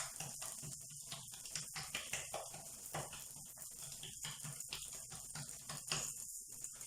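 Soft, irregular pats and taps of hands working oiled msemen dough, over a faint steady sizzle of flatbreads frying in the pan.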